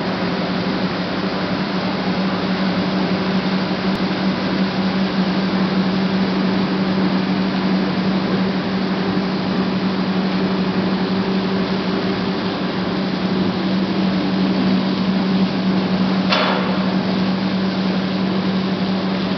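Ship lift's vertical-lift gate being raised by its drive machinery: a steady loud hum over a rushing noise, with a single sharp knock about sixteen seconds in. The hum cuts off near the end as the gate stops.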